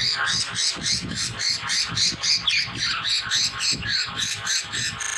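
Budgerigars chattering: a dense, fast run of short chirps and squawks that cuts off suddenly at the very end.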